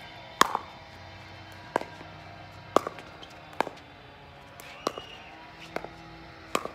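Pickleball rally: paddles striking the hollow plastic ball, seven sharp pops about a second apart.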